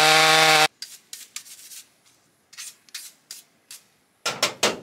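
A two-stroke Stihl chainsaw running flat out in a cut, at a steady pitch, stops abruptly about two thirds of a second in. Then a stiff brush scrubs over the metal chainsaw bar in scattered short strokes, with a quick burst of louder scrubbing near the end.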